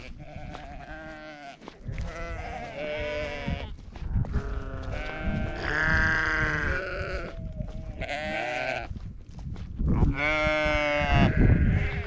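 Sheep bleating, about six calls with a wavering pitch, the longest and loudest near the middle. A low rumble runs underneath.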